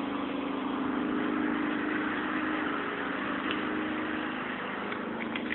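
Small gasoline engine idling steadily.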